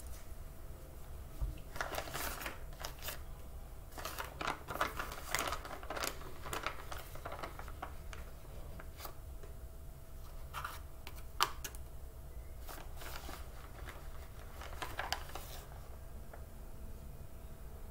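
Paper rustling and crinkling in irregular bursts, with light clicks and scrapes, as a paper bag in a small cardboard box is handled and a wooden stick worked in it.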